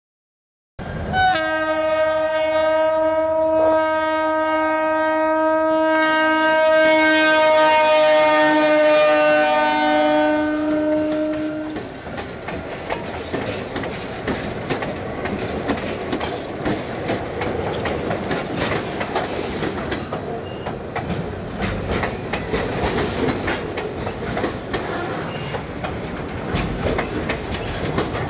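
Diesel freight locomotive's multi-note air horn blowing one long blast of about ten seconds. Its pitch sags slightly as the locomotive passes, then it cuts off. Then a long string of loaded flatcars rolls by with a steady clickety-clack of wheels over the rail joints.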